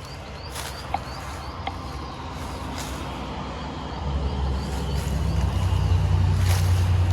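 Low engine rumble of a passing motor vehicle, growing louder from about four seconds in, with footsteps on a trail.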